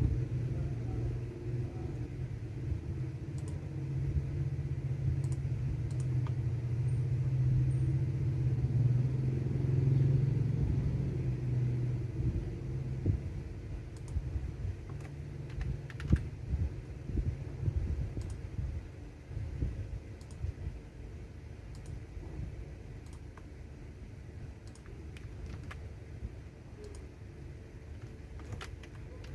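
Typing on a computer keyboard: scattered key clicks over a low rumble that is loudest for about the first twelve seconds, then dies down.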